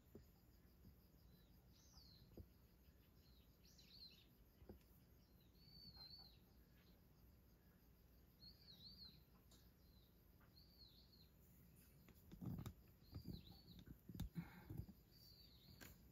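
Faint bird calls: short, high, slurred chirps repeated every second or two. A few soft low thumps come near the end.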